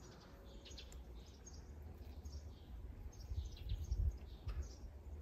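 Small birds chirping on and off: scattered short, high calls. Under them runs a faint low rumble that swells and is loudest about four seconds in.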